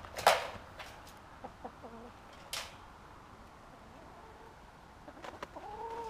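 Hen clucking softly, then giving a short rising call near the end. Two sharp taps sound, one just after the start and one about two and a half seconds in.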